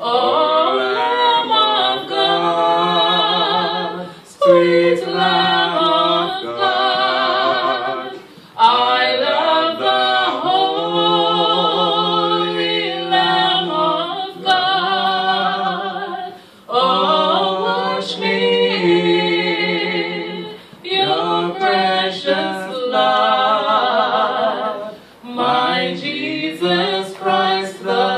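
A woman and a man singing a gospel song a cappella, her voice leading with vibrato over his lower part. The singing comes in held phrases a few seconds long, with short breaks for breath between them.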